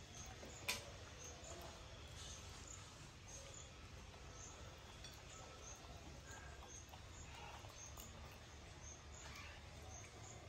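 Quiet background with faint high chirps repeating about twice a second, and a single sharp click under a second in.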